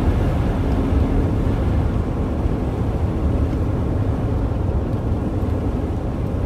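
Steady road and engine noise of a car driving at an even speed, heard inside the cabin as a low drone.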